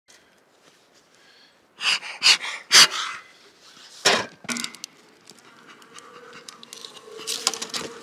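Bellows bee smoker puffed four times, short breathy whooshes of air, the last a little apart from the first three. Near the end a faint steady hum of honey bees comes in.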